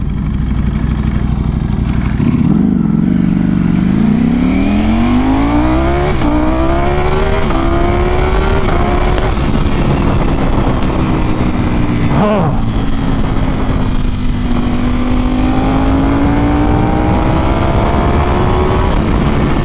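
Ducati Panigale V4R's V4 engine through an Akrapovic exhaust under hard acceleration: the revs climb steeply, with quick upshifts about six and seven and a half seconds in. It then holds at a steady engine speed and climbs slowly again near the end.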